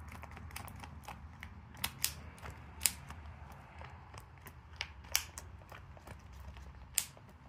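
Irregular sharp clicks and crackles of a clear plastic resin container being handled by a gloved hand against the edge of a timber slab, over a low steady hum.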